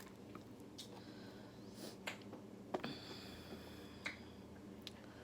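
Faint, scattered mouth clicks and smacks of someone eating, a few sharp ones about two and three-quarters and four seconds in, over a low steady hum.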